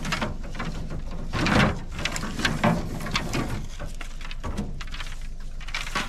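Dry bamboo leaves and branches rustling and crackling in a dense, irregular patter, swelling loudest about a second and a half in and again shortly after.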